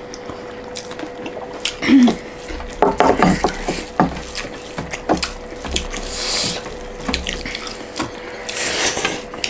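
Eating sounds: wet squelching of fingers mixing rice and curry on metal plates, with chewing and lip smacks as irregular clicks and short wet bursts. A faint steady hum runs underneath.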